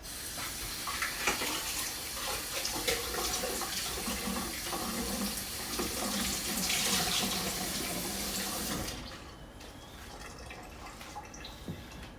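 Kitchen tap running into a sink with a few knocks mixed in, shut off about nine seconds in.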